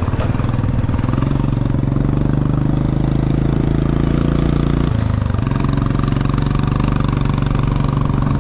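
A vehicle engine running steadily. It dips briefly in pitch about five seconds in, then picks up again.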